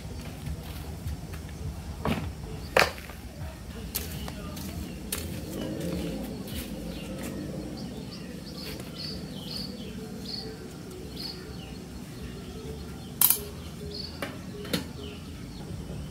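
Outdoor ambience with a steady low rumble, a bird chirping a short high note over and over in the middle, and a few sharp clicks and knocks, the loudest about three seconds in and again near the end.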